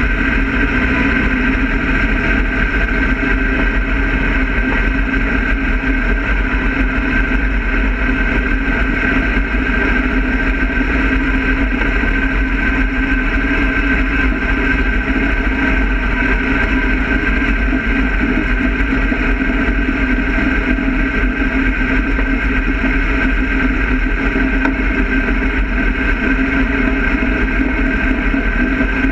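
Dirt-track race car's engine running steadily at low speed, heard from inside the cockpit, with no revving.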